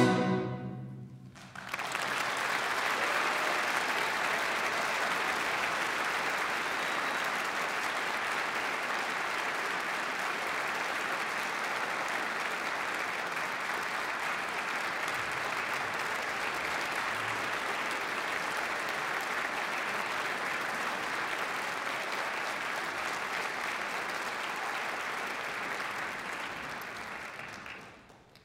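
The last orchestral chord dies away in the hall's echo, then an audience applauds steadily for about 25 seconds before fading out near the end.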